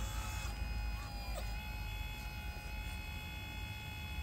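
Hydraulic pump of a 1/16-scale Double E Volvo EC160E RC excavator, converted from electric to hydraulic, whining at a steady pitch as the boom and arm work, with a short dip in pitch about a second and a half in.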